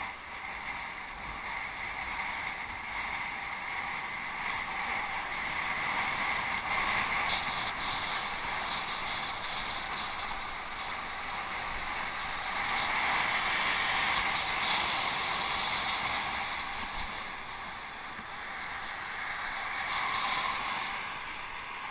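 Bicycle being ridden off-road: steady riding noise that grows louder for a few seconds just past the middle.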